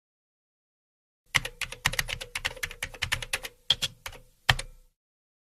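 Typing on a computer keyboard: a quick run of keystrokes starting about a second in, ending with two separate, harder key presses.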